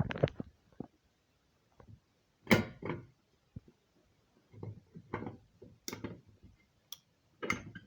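Simplex fire alarm pull station worked by hand: its handle is pulled down and handled, giving a string of irregular sharp clacks and softer knocks.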